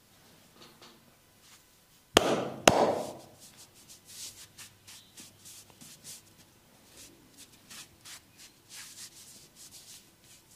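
Two loud, sharp slaps about half a second apart, each trailing off briefly, followed by a run of soft rubbing and brushing strokes of hands working over skin in a massage.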